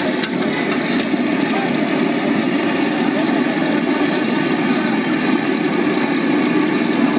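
Hot oil bubbling and sizzling in an iron kadhai as fried bombil (Bombay duck) fish are lifted out on a slotted spatula, over a steady low roar.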